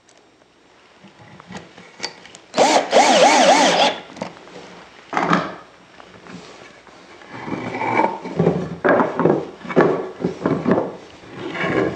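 A cordless drill drives a screw into a pocket-hole joint of the wooden chair frame for about a second and a half, starting a little over two seconds in, with a short second burst a couple of seconds later. After that, wooden frame pieces knock and rub against each other and the workbench as they are handled.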